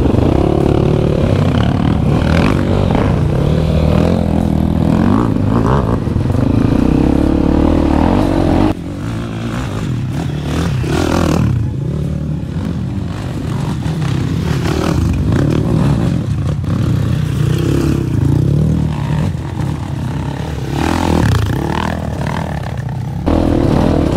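Dirt bike engine rising and falling in revs as it is ridden, quieter from about nine seconds in until near the end.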